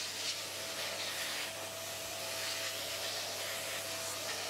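Vacuum cleaner running steadily, a continuous airy hiss with a faint whine, its nozzle sucking crumbling old foam out of a mechanical calculator.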